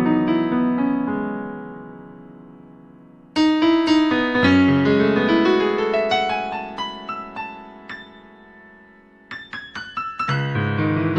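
Casio CTK-4200 arranger keyboard played on a piano voice: chords struck and left to ring and fade, a fresh chord about a third of the way in, then a quick run of short notes near the end leading into another chord.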